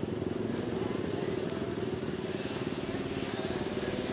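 Quad ATV engine running steadily at low throttle, without revving.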